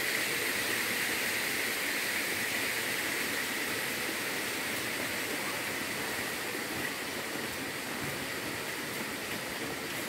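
Steady rushing of a waterfall, an even hiss that fades slightly over the seconds.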